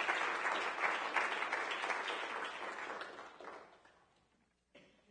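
Audience applauding, a dense patter of many hands clapping that fades away about three and a half seconds in. A single brief short noise follows near the end.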